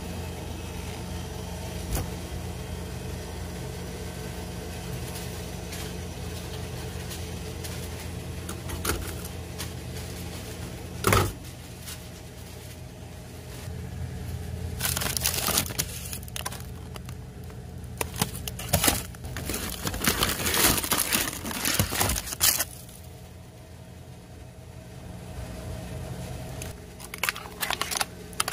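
Plastic-wrapped frozen food packs crinkling and rustling as they are handled in a store freezer, in bursts through the second half, over a steady low hum of refrigeration. A single sharp knock partway through.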